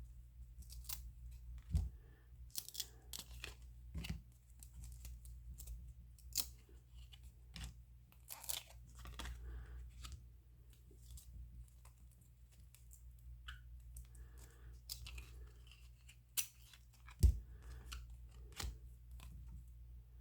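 1993 Upper Deck baseball cards being handled and flipped through: scattered soft flicks and rustles of card stock, with a couple of low thumps, over a faint steady low hum.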